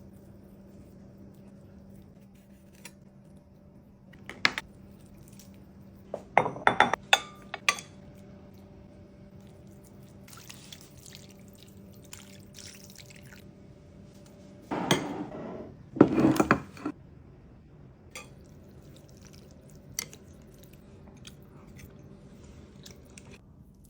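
Kitchen work sounds: dishes, glassware and utensils clinking and knocking in a few short clusters, loudest about 6 to 7 seconds in and again around 15 to 17 seconds, over a steady low hum.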